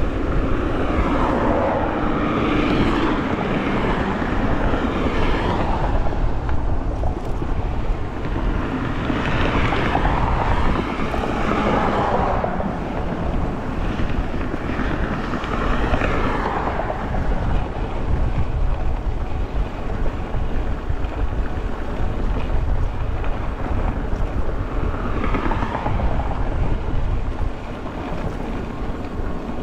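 Wind buffeting a GoPro's microphone while riding an e-bike along a trail: a steady low rush with a few brief swells.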